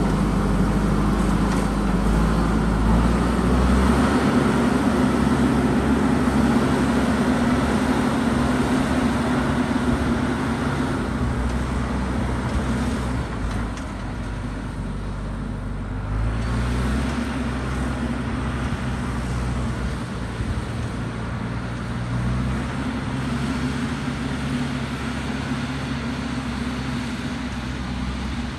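JCB backhoe loader's diesel engine running as the machine works, its engine speed rising and falling a few times.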